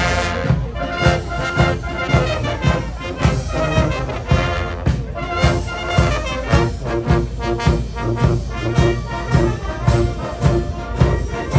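A marching concert band playing: brass instruments over a steady drum beat of about two beats a second.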